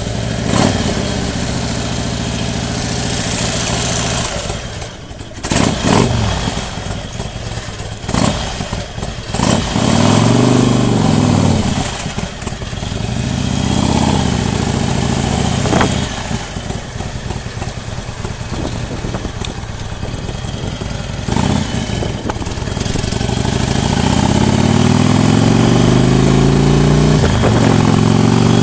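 Motorcycle engine running under way, its pitch rising and falling several times as it speeds up and eases off. Over the last few seconds it climbs steadily in a long pull.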